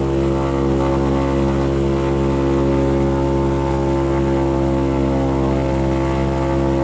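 Douglas DC-3's twin radial piston engines and propellers running steadily at an unchanging pitch, heard from inside the cockpit, with a slight throb about twice a second.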